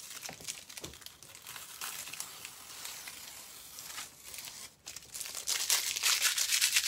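Peeled-off tape being crumpled and crinkled by hand, a crackling rustle that grows loudest near the end.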